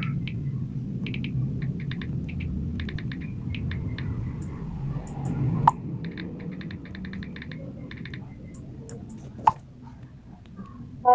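Smartphone on-screen keyboard clicking in quick bursts of taps as a message is typed. A short pop sounds twice, about six seconds in and again near the end, as each WhatsApp message is sent. A steady low rumble runs underneath.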